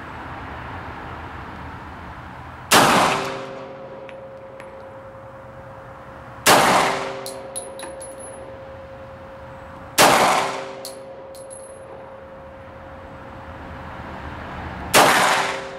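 Four single shots from a SIG P210 pistol in 7.65 mm Parabellum, fired slowly several seconds apart, each sharp crack trailing off in echo, with small metallic clicks after the shots.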